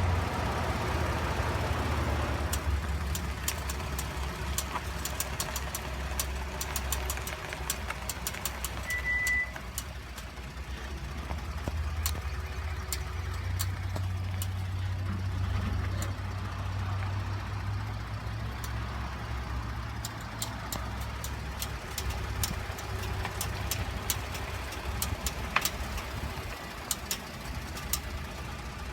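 2013 Ford F-150 FX4 EcoBoost pickup running, with irregular runs of sharp clicking from the front end while turning. The cause is a faulty IWE (integrated wheel end) solenoid.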